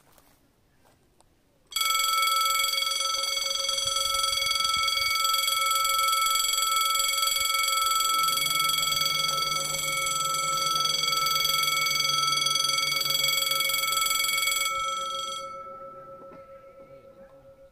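Railway level-crossing warning bell ringing, a loud steady electric ringing of many tones, starting about two seconds in. About six seconds later a low motor hum joins as the barrier arm lowers, and the ringing stops about fifteen seconds in with the barrier down, leaving a faint tone that fades away.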